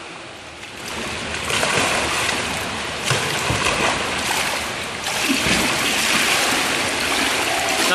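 Water splashing and churning as a kayak is tipped over and rolled back upright, starting about a second in, with a few dull knocks partway through.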